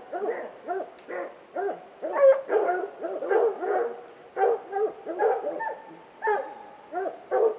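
Hunting hounds baying without pause at the foot of a tree, with rapid overlapping barks, a few drawn out into longer howls. This is the bay of hounds holding a treed mountain lion.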